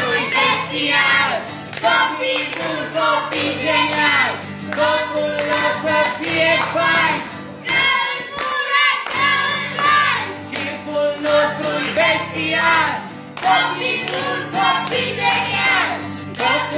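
Children singing a folk song to a strummed guitar.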